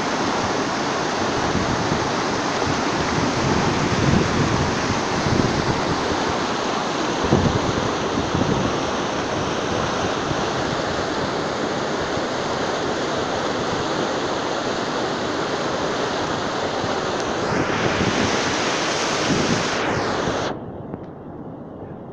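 Glacial meltwater of the Bhagirathi river gushing over boulders: a loud, steady, howling rush of water. About a second and a half before the end it drops suddenly to a much quieter, duller rush.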